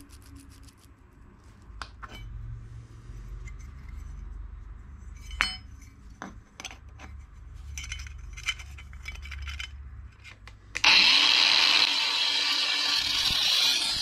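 Small clicks and clinks of thin tin-plate metal parts being handled and fitted together. About 11 s in, an angle grinder with a cutting disc starts cutting metal on the compressor, loud and steady.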